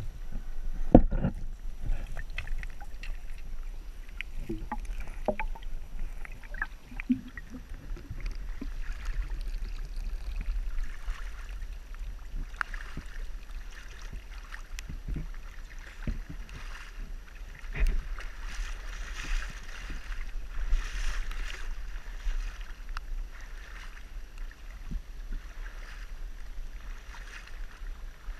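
Shallow creek water heard through a waterproof action camera: underwater at first, with scattered knocks and clicks over a low rumble, then from about halfway the camera is at the surface and water sloshes and splashes around it.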